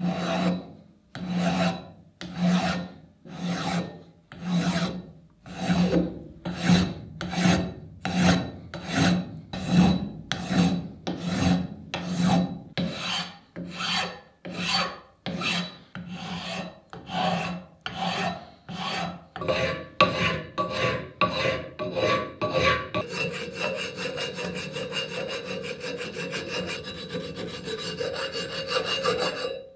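Metal hand file rasping across the aluminum body of a button machine in long strokes, about one a second at first. The strokes grow shorter and quicker, and near the end they run into a fast, almost unbroken scraping.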